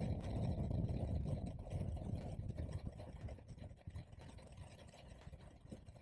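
Low rumble of wind buffeting the camera microphone, together with road noise from a bicycle rolling on pavement. It grows steadily quieter over the second half.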